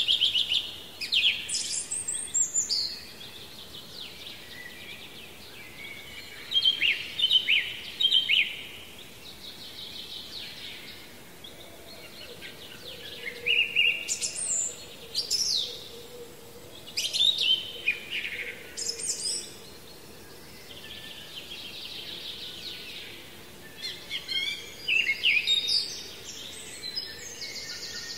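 Songbirds singing in short, bright phrases that come in bouts every few seconds, over a faint steady hiss.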